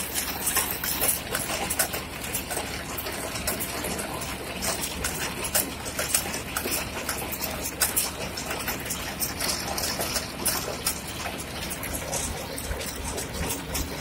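Redlands baler running, driven by the tractor: its roller chains and sprockets give a steady clatter with many irregular clicks and knocks over a low machine drone.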